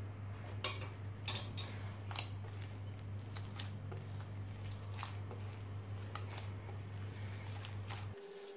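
Hand kneading soft dough in a glass bowl to work butter into it: soft squishing with scattered sharp clicks as fingers and the dough knock against the glass. A low steady hum runs underneath and cuts off near the end.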